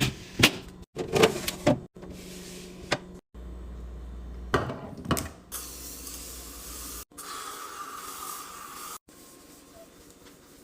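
A quick run of handling sounds: several sharp clicks and knocks, like containers, lids and packaging being handled, then a steady hiss of a few seconds.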